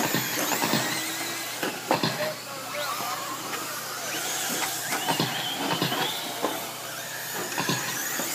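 Several radio-controlled short course trucks racing: high motor whines rising and falling as they speed up and slow through the turns, with scattered clicks and knocks.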